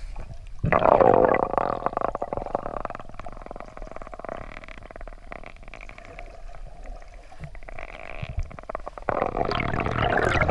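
Muffled underwater rumbling and crackling water noise. It swells after about a second, eases off through the middle, and grows louder again near the end.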